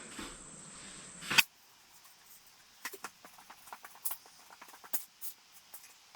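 Hand work on a Jeep soft top: one sharp, loud click about a second and a half in, then scattered light clicks and scratches.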